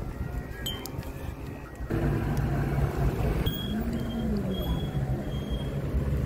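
Wind rumbling on the microphone, with a light clink of glass less than a second in. After about two seconds a steady rush of tea pouring from a samovar tap into a glass joins the wind.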